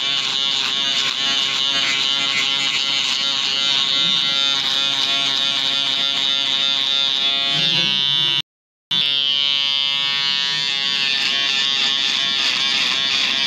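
Handheld electric foil shaver buzzing steadily as it shaves stubble on the neck below the beard line. The sound cuts out completely for about half a second a little past eight seconds in, then goes on.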